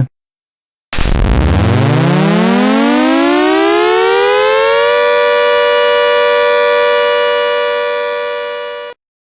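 Tornado siren winding up over about four seconds, then holding a steady chord of several tones before cutting off suddenly near the end. It is sounding the all-clear.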